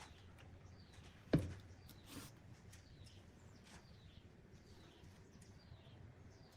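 Birds chirping repeatedly in short falling notes, with a single sharp knock about a second in.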